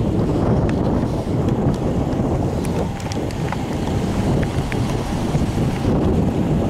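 Wind buffeting the camera microphone: a steady low rumbling noise.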